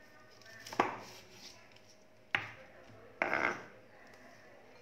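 Chef's knife chopping lettuce on a wooden cutting board: two sharp chops, then a short rustling scrape a little after three seconds in as the cut lettuce is gathered off the board.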